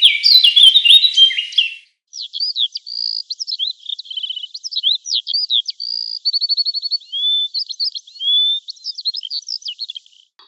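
Birdsong: a loud burst of high, stepped calls for about the first two seconds, then after a short pause a fast, varied songbird song of whistles, trills and chirps that runs on until just before the end.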